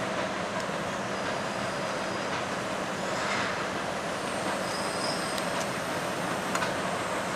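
Mobile crane's engine running steadily under load while it holds a suspended Shinkansen car, with faint high squeaks and a few light clicks.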